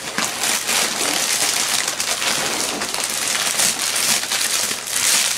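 Packaging rustling and crinkling continuously as a tightly packed gift basket is handled and pulled out of its box.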